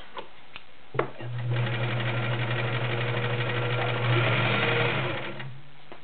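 Kenmore Model 1940 all-metal-gear sewing machine with its 1-amp motor running, stitching cotton eyelet fabric. A sharp click about a second in, then the motor hums and the needle stitches steadily for about four seconds, a little louder near the end, before it stops.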